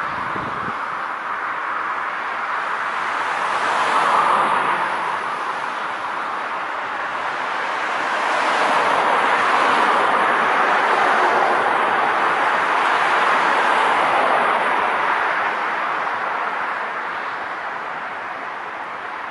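Passing road traffic: steady tyre noise of cars on the road, swelling as one vehicle goes by about four seconds in. A pickup truck approaches and passes in a longer, louder swell from about eight to fifteen seconds.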